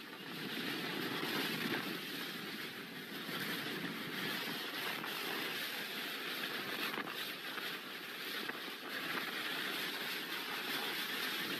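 Hurricane-force wind blowing in a steady, unbroken rush.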